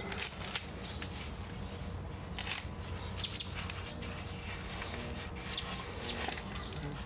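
Birds chirping in short calls a few times over a steady low hum.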